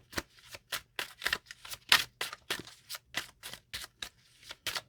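A deck of tarot cards being shuffled by hand: a quick, even run of short card strikes, about three or four a second.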